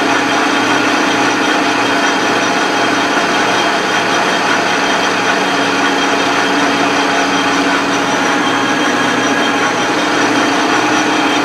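Metal lathe running at a steady speed with a turning tool cutting a small steel pin held in the chuck. It gives an even machine hum over a constant low drone.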